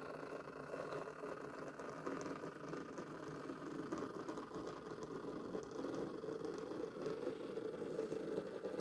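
Liliput H0 BR 45 model steam locomotive running slowly on the track: a steady whirr from its small electric motor and gearing, with light rattling, getting a little louder in the second half. The drive is faulty: the owner says the tender wheels slip.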